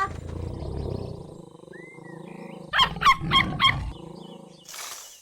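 Cartoon tiger sound effect: a low growl at the start, then four short sharp cries in quick succession around the middle, and a brief whoosh near the end.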